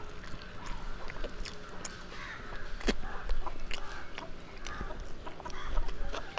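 Close chewing and small mouth and finger sounds of someone eating by hand from a steel plate, with a sharp click about three seconds in. Chickens cluck faintly in the background.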